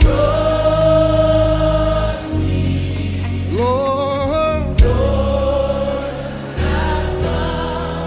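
Gospel choir singing a slow worship song over keyboard, bass and drums. A long held note gives way about halfway through to a rising, stepwise vocal run, and a drum hit lands just before the next phrase.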